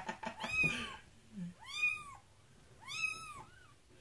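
Young kitten mewing while it is washed in a sink: three high, thin calls about a second apart, each rising and then falling in pitch, with a shorter one after the last. A little splashing and handling noise comes at the start.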